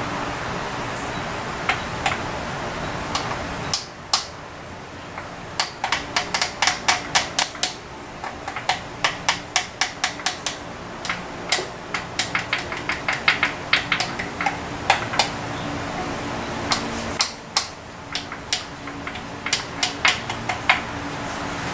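A run of sharp, irregular clicks and taps, several a second, over a steady background hiss.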